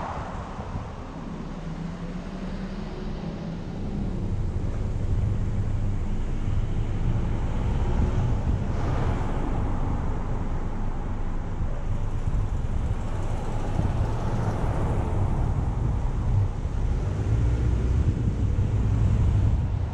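Low, steady rumble of a car driving on a city street: engine and tyre noise with wind on the microphone, louder from about four seconds in.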